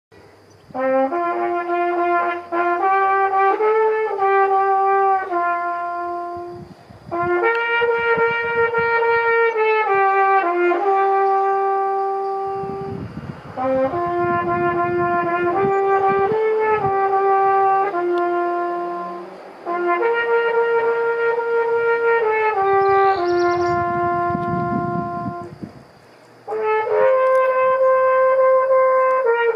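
Solo flugelhorn playing a slow melody, one note at a time, in phrases of about six seconds with short breathing pauses between them.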